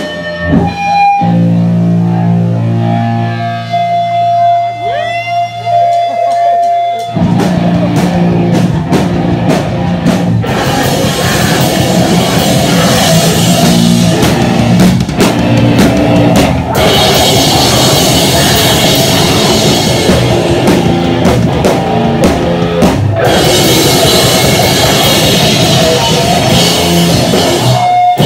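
Live rock band played loud: for about the first seven seconds a guitar holds ringing notes with sliding pitches, then the drum kit and the rest of the band come in and play dense and heavy to the end.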